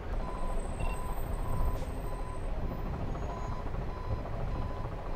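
Vehicle reversing alarm beeping at an even pace, a little under two beeps a second, over a steady low rumble of engines.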